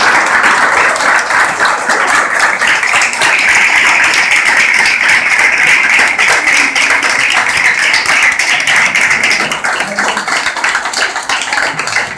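Applause from a small audience: many hands clapping close by, thinning out near the end.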